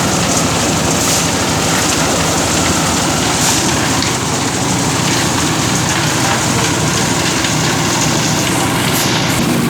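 Concrete mixer machine's engine running loudly and steadily, with a dense, fast rattle and no change in pace.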